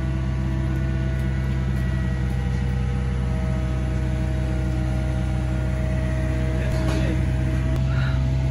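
A heavy machinery engine running at a steady, unchanging speed as a constant low drone, while a crane holds a fibreglass pool shell in the air. A few brief faint sounds come near the end.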